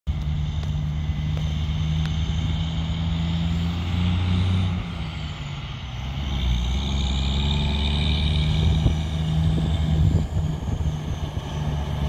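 GMC General semi truck's diesel engine running under load as it hauls a full hopper-bottom trailer of wheat. The engine eases off about five seconds in, then builds again.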